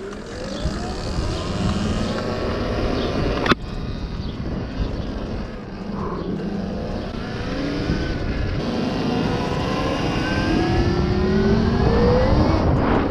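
Whine of an electric dirt bike's QS138 mid-drive motor, rising in pitch as the bike accelerates from a start and again as it speeds up later, over a low rumble. A single sharp knock about three and a half seconds in.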